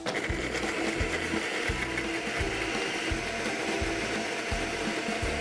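Kitchen mixer grinder switched on and running steadily, its blade grinding soaked, peeled almonds with a little cold milk into a fine paste. It starts abruptly.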